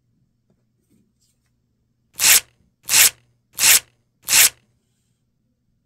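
Four short, evenly spaced hisses of a whipped-cream aerosol can spraying: a dubbed sound effect for cream being sprayed into a glass.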